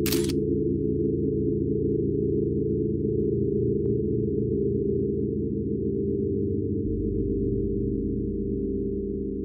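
Low, eerie background drone of several steady held tones, with a brief hiss right at the start; it begins to fade near the end.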